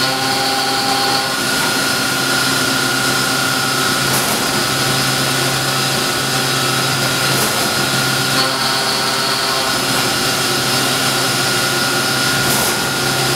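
KME CNC horizontal machining centre running: a steady hum and a steady high whine over an even machine hiss.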